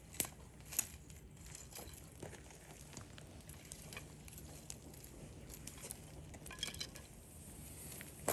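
Wood campfire crackling, with irregular sharp pops, two of the louder ones in the first second and a quick run of small pops about two-thirds of the way through.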